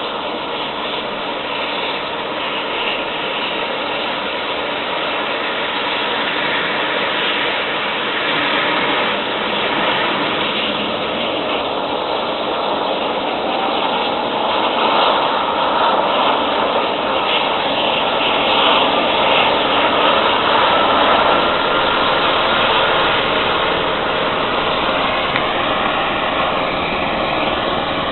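Air ambulance helicopter's turbine engines and rotor running on the ground, a steady rush with a turbine whine. It grows louder, and about halfway through the whine slowly rises in pitch as the helicopter powers up for lift-off.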